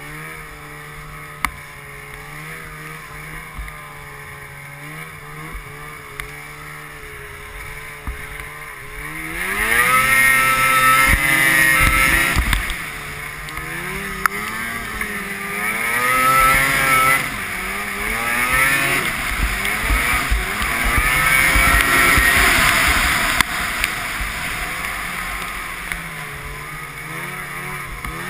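Ski-Doo XP 600 snowmobile's two-stroke engine running steadily at low speed, then about nine seconds in the throttle opens and it revs up, its pitch rising and falling with the throttle for the rest of the ride.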